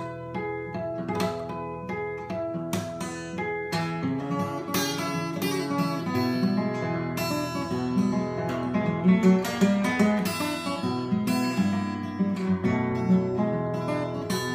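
Steel-string acoustic guitar with a capo, fingerpicked in a ragtime blues style as an instrumental break between verses. The playing grows busier and louder about four seconds in.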